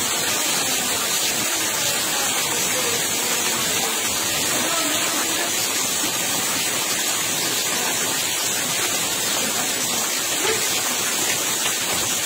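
Steady rushing of flowing muddy floodwater, with rain falling on the water's surface.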